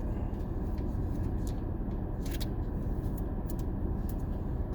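Steady low rumble inside a car's cabin, with the engine and air conditioning running, and a few soft clicks of trading cards being handled.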